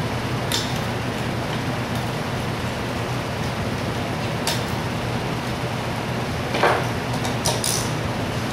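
Scattered light clicks and clinks of small metal parts and hand tools as a Zenoah G270RC two-stroke engine is assembled by hand, over a steady background hiss and hum. The loudest knock comes about three-quarters of the way in, followed closely by a couple of lighter taps.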